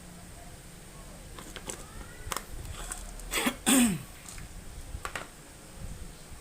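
A few light clicks and taps, then a person clears their throat with a short cough about three and a half seconds in.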